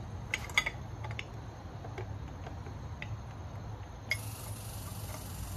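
Light clicks and taps of metal exhaust-header parts being handled and pressed into place at a motorcycle engine, with two sharper clicks near the start. About four seconds in a steady high hiss begins, over a low steady hum.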